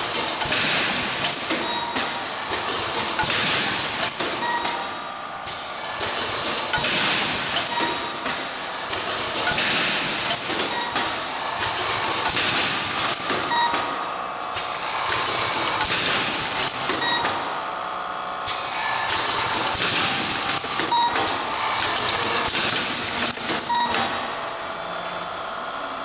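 80PN connector automatic assembly machine running in repeated cycles: a loud high hiss that swells for a few seconds and drops back, over and over, with short faint blips now and then.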